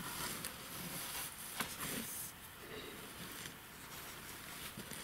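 Rustling of a nylon unhooking mat, with a few soft clicks and taps, as a mirror carp is handled on it.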